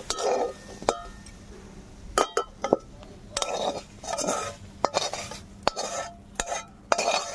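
Metal spatula scraping and knocking against a metal kadai as boiled green-banana peels are scraped out of it. A string of sharp clinks, some ringing briefly, with scraping between them.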